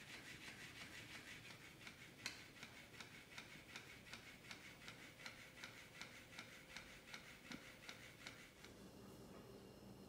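Electric flopping fish cat toy wiggling on a concrete floor: a faint motor whir with its tail ticking against the floor about three or four times a second. One sharper tick about two seconds in, and the ticking stops near the end.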